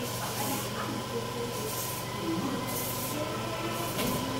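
Steady low mechanical hum with a hiss that swells and fades about once a second, and one sharp knock near the end.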